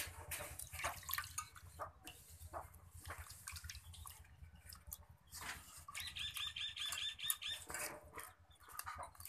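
Wet hands rub and slosh a fish in a metal basin of water, making short splashes and scrapes. About six seconds in, a rapid run of about eight high chirping calls lasts under two seconds.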